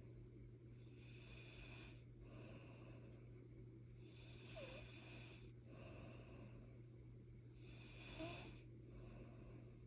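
A sleeping person snoring faintly in slow, regular breaths a few seconds apart, over a steady low hum.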